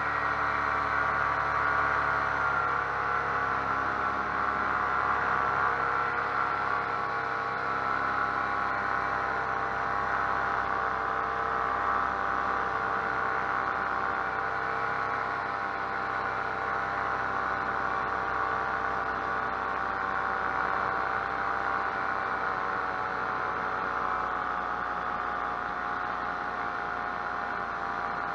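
Paramotor engine and propeller running in flight at a steady throttle: an even drone that holds its pitch.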